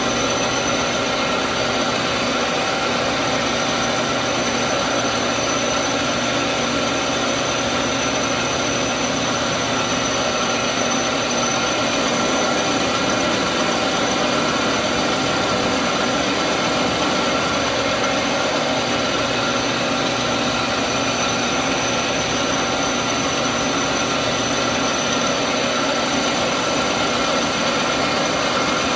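Metal lathe running at steady speed, its chuck spinning a shotgun barrel, with a constant whine over an even mechanical drone.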